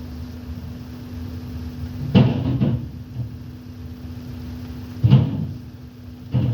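CAT skid steer loader's diesel engine running steadily, with three heavy clunks, about two and five seconds in and again at the very end, as the bucket works concrete sidewalk slabs.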